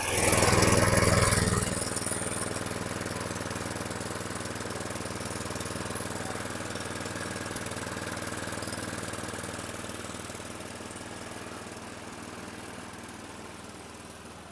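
A 2013 Craftsman front-wheel-drive push mower's small engine starts, running loudly for the first second or two as it catches, then settles into a steady idle that is a little low and gets gradually quieter toward the end.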